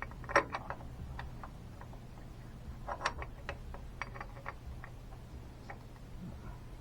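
Scattered light metallic clicks and taps of a gear and its pin being handled and fitted by hand into a motorcycle engine case, with a sharper tap about half a second in and small runs of clicks around the middle, over a steady low hum.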